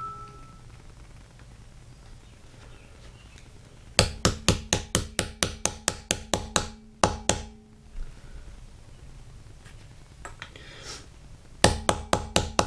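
A hammer lightly tapping a screwdriver handle to seat decorative rivets into a wheel rim. A quick run of light taps, about five a second, starts about four seconds in and lasts some three seconds, each tap with a short ringing note. A second run of taps comes near the end.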